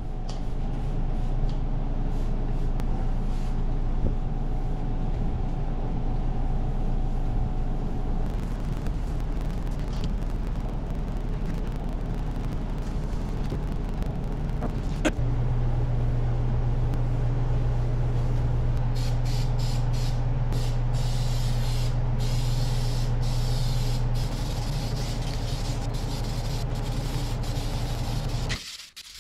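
A motor-driven machine running steadily with a low hum, starting just before and cutting off suddenly near the end. A sharp click comes about halfway, after which the hum grows stronger. A higher hiss of rushing air comes and goes in the last third.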